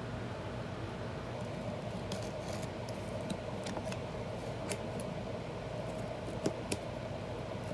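Small clicks and snips of an old book's binding threads being cut and handled, over a steady background hum. Two sharper clicks come near the end.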